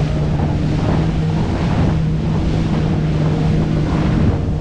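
A Yamaha WaveRunner FX HO Cruiser jet ski's four-stroke engine runs steadily at speed. Wind buffets the microphone and spray and water hiss over it.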